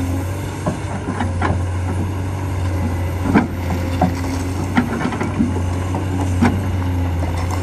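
Cat 385C excavator's C18 diesel engine running with a steady low drone, while its hydraulic hammer works the rocky ground with irregular sharp knocks, the loudest about three and a half seconds in.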